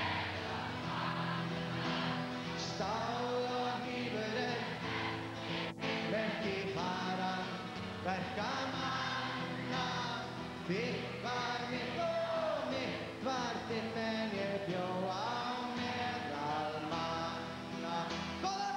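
Live solo song: a strummed acoustic guitar under a man singing the melody in phrases.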